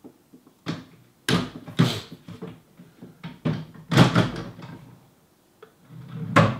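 Wooden drawer of an IKEA HEMNES side table being slid into its frame and pushed shut: a run of wood-on-wood knocks and scrapes, the loudest about four seconds in, ending with a slide and a knock as it closes near the end.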